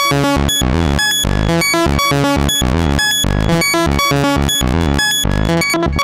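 Roland SH-101 analog monophonic synthesizer playing a fast sixteenth-note sequence of short, bright pitched notes through tape echo and plate reverb. Its tone shifts as the panel sliders are moved.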